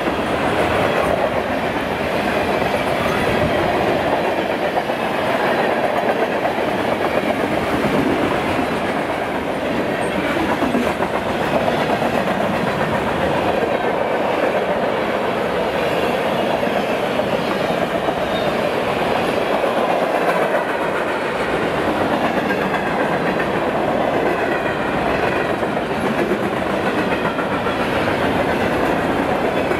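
Freight cars of a long train rolling past close by: a steady rumble and rattle of steel wheels on rail.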